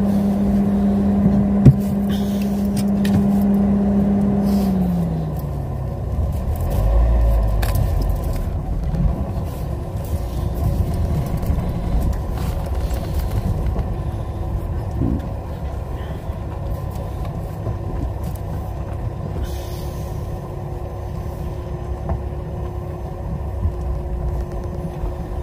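Talbot Talisman motorhome's engine running with a steady hum that glides down in pitch about five seconds in as the revs drop, then a low thump and a steady low rumble.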